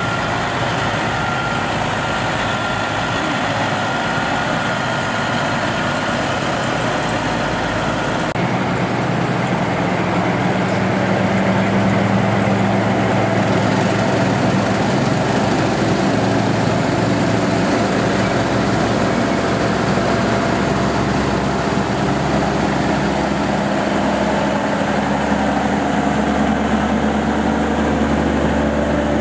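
Heavy diesel truck engines running as trucks drive slowly past at low revs: first a long-hood semi tractor, then a cabover dump truck towing a trailer. The engine sound changes about a third of the way through, and a deeper rumble grows near the end as the dump truck passes close by.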